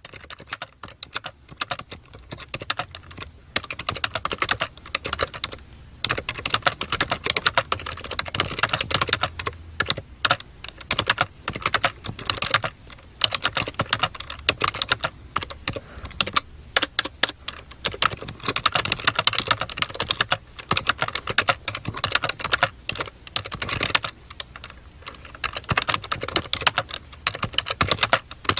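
Typing on a computer keyboard: rapid, irregular key clicks in bursts, with short pauses now and then.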